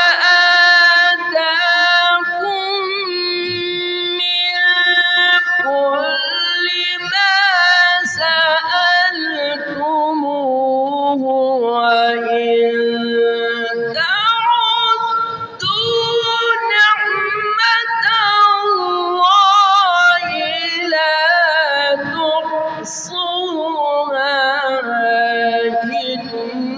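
A man reciting the Quran in melodic tajweed style, in a high register, drawing out long held notes with a wavering, ornamented pitch that glides between tones.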